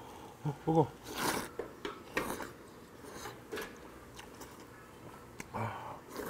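A person slurping ramen noodles off chopsticks: about four short, noisy slurps spread over several seconds, with faint ticks between them.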